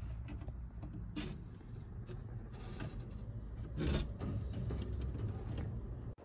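Rustling and scuffing as kittens move about in their nest bedding, over a low rumble, with louder rustles about a second in and near four seconds.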